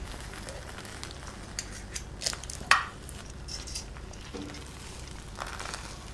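Metal tongs turning a part-roasted whole chicken in a glass roasting dish: a few light clicks and knocks of metal on glass and on the bird, the sharpest about two and a half seconds in.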